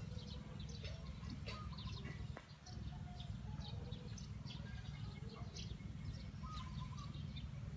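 Frogs calling in chorus after rain: many short high calls overlapping, with a few lower notes, over a steady low rumble.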